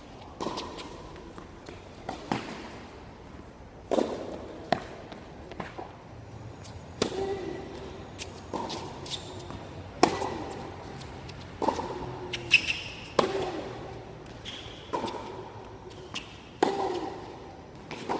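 Tennis ball struck back and forth in a baseline rally on a hard court: sharp racket hits and ball bounces about every one and a half to two seconds, each with a short ringing echo under the court's roof.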